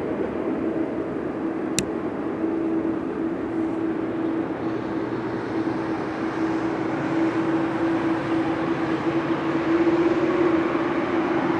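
Jet engines of a departing airliner running at high thrust: a steady rushing noise with a droning tone, swelling slightly near the end. A short sharp click sounds about two seconds in.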